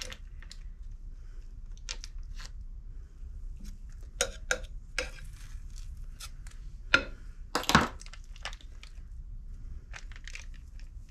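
The foil wrapper of a block of cream cheese crinkling and rustling while the sticky cheese is scraped off it. It comes as irregular short rustles, with two louder crackles about seven and eight seconds in.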